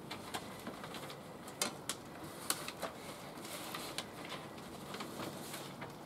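Irregular small clicks and taps from a laptop and a sheet of paper being handled, a few sharper clicks among them, over a low steady background.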